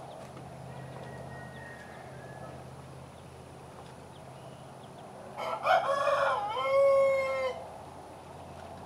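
Black-breasted red Phoenix rooster crowing once, about five seconds in: a crow of roughly two seconds that ends on a long held note.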